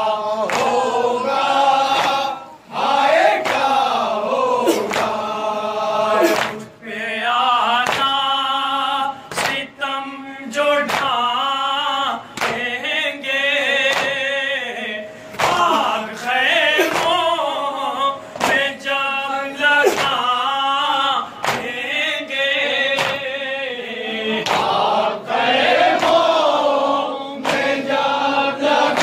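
Men chanting an Urdu nauha, a Shia lament for Imam Hussain, in a group with the melody carried into the microphone, accompanied by rhythmic matam: hands slapping chests roughly once a second.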